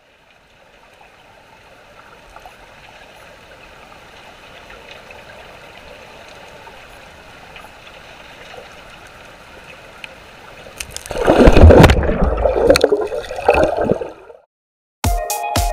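Flowing water heard with the camera held underwater in a river, fading in. About eleven seconds in it turns into loud churning and gurgling of rushing bubbles, which stops abruptly. Electronic music with a steady beat starts near the end.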